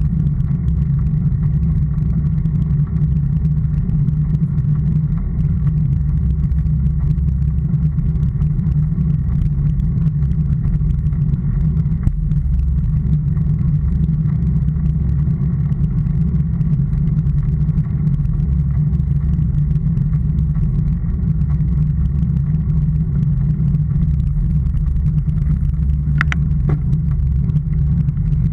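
Steady low rumble of a moving vehicle picked up by a camera mounted close to the road surface, with a short click near the end.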